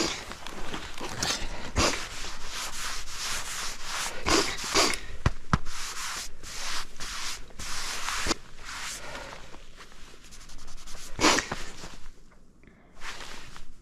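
Nordic skate blades scraping and gliding over thin new lake ice about 45 mm thick, in repeated hissing strokes with a few sharp clicks, thinning out near the end.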